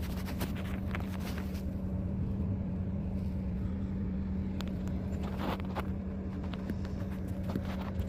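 A vehicle engine idling with a steady low hum, with a few light knocks and rustles from the phone being handled close to the microphone.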